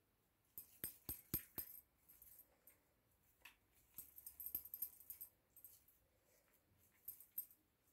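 Near silence, with faint clicks and soft pats from hands shaping a ball of potato kofta mixture between the palms: a handful of sharp clicks about a second in, then a faint patter around the middle.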